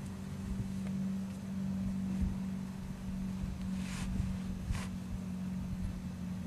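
A steady low hum under irregular low rumbling, with two brief hissy scrapes about four and five seconds in.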